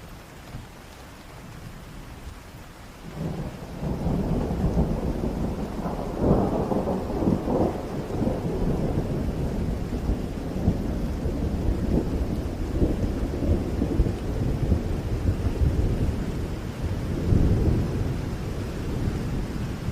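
Heavy rain with a long roll of thunder that sets in about three seconds in and keeps rumbling, swelling twice.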